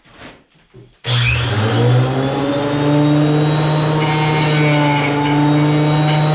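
Electric power tool motor switched on about a second in, its pitch rising briefly as it spins up, then running steadily at full speed.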